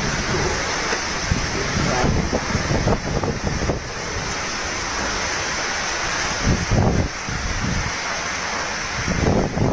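Typhoon wind buffeting the microphone in irregular low gusts, strongest about two-thirds of the way through, over a steady rush of wind-driven rain and storm surf.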